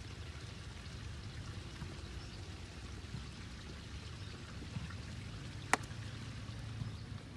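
A woodball mallet strikes the wooden ball once, a single sharp wooden knock about three-quarters of the way through, over a steady outdoor hiss.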